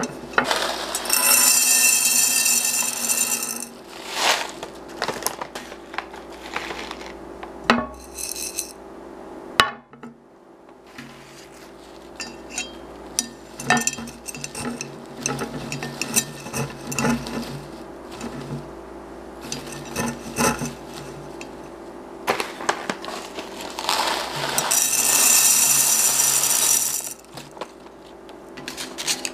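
Small white decorative pebbles poured into a tall glass cylinder vase: a rushing rattle of stones against glass and each other in two long pours, one near the start and one near the end, with scattered clinks of single pebbles in between.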